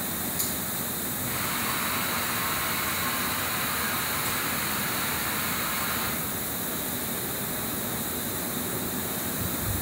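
Steady outdoor hiss of industrial background noise. A brighter hissing layer joins it about a second in and drops away about six seconds in.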